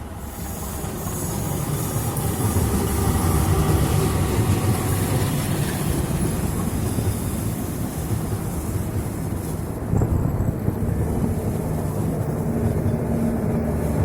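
KAI CC206 diesel-electric locomotive hauling a passenger train along the track. A heavy rumble builds over the first couple of seconds and then holds steady, with a few sharp clacks about ten seconds in.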